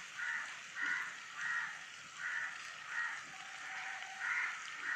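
A bird calling over and over, about eight short harsh calls in a row, over the faint sizzle of curry leaves, ginger and garlic frying in hot coconut oil.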